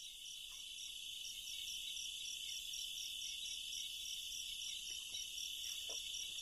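Crickets and other night insects: a steady high-pitched trill with a second, higher one pulsing about three times a second. A few faint taps come near the end.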